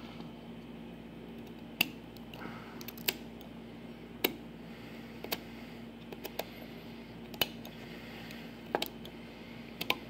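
Plastic push buttons of a rebuilt six-button Fedders Weather Wheel air-conditioner selector switch being pressed by hand: about seven sharp clicks, irregularly spaced roughly a second apart, over a faint steady hum.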